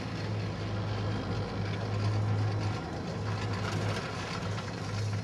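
Steady low hum under a constant rushing noise, heard while riding a chairlift, mostly wind on the microphone.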